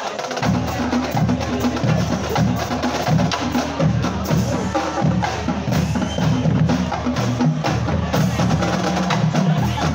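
Marching drumline playing a fast cadence: crisp snare drum strokes over pitched bass drum notes that shift from drum to drum.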